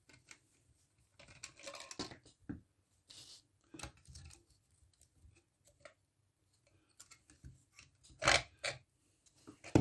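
Scattered clicks, scrapes and rustling of hands working loose the control circuit board of an electronic sewing machine, with a louder pair of clicks about eight seconds in.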